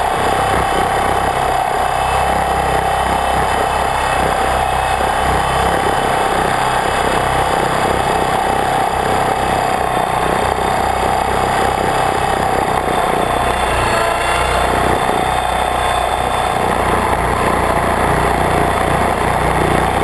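Motors and propellers of a radio-controlled multirotor in flight: a loud, steady buzzing whine whose pitch wavers slightly, heard from a camera mounted on its frame.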